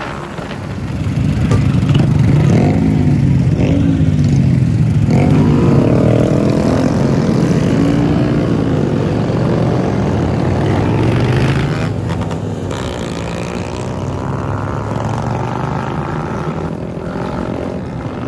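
Small mini-moto and scooter engines running together in a group ride, revving so that the pitch rises and falls several times. Louder from about two seconds in, easing back a little around eleven seconds.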